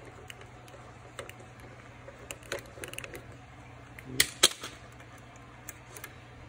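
Scattered light clicks and taps of refrigerator ice-maker parts and wiring being handled and taken apart, with two sharp louder clicks about four seconds in.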